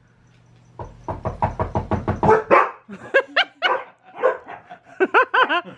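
A recording of rapid knocking on a door, about six knocks a second for roughly two seconds, played through a speaker. The dogs then bark several times in response to it.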